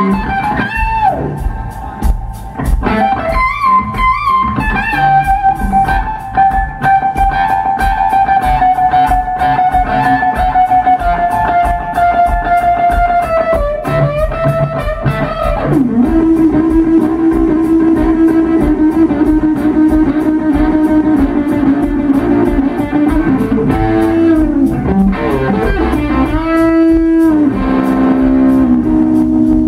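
Live blues band: an electric guitar soloing in long sustained notes, one high note held and sagging slowly in pitch before dropping to a lower held note about halfway through. Electric bass and drums keep a steady beat underneath.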